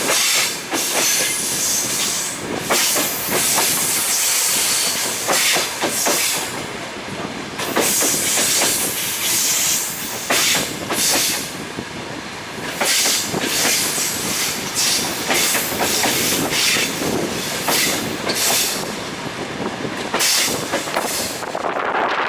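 Railway carriage rolling along at speed: a steady rushing rumble with the clickety-clack of the wheels knocking over rail joints every second or two.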